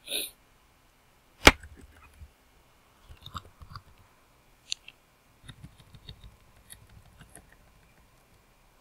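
Computer keyboard keys being pressed in scattered light clicks as a name is deleted and retyped, with one sharp, much louder click about a second and a half in and a brief rustle right at the start.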